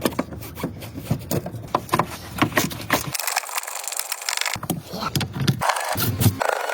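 Clicking and knocking of hand work on a car's front bumper as it is being removed: repeated short sharp clicks and knocks of plastic and metal parts.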